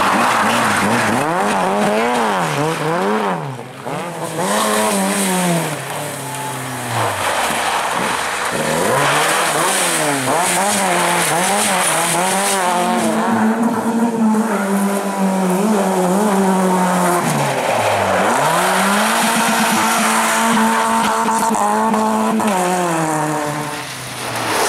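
Rally car engines revved hard and backed off again and again through tight slalom turns, with tyres skidding on loose gravel. The engine note is held high for a few seconds midway. A different car takes over more than once, first an Opel Ascona and finally a Skoda 130 LR.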